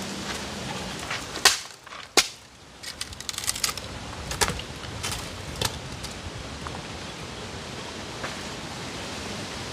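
Dry firewood cracking and knocking as sticks are broken and laid onto a small open fire: two sharp cracks about a second and a half and two seconds in, then a run of lighter knocks, followed by a steady hiss.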